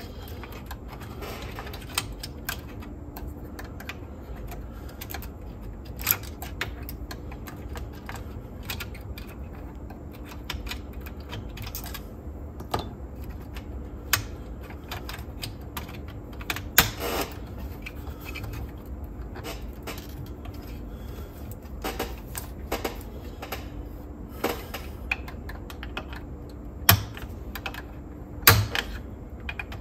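Irregular small clicks and taps of plastic and metal parts being handled and fitted inside a cassette deck's tape transport, over a faint steady hum, with a few sharper knocks near the end.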